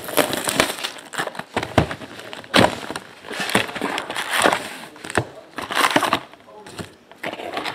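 Crinkling and tearing of trading-card pack wrappers and packaging being handled and opened, with irregular sharp clicks and scrapes.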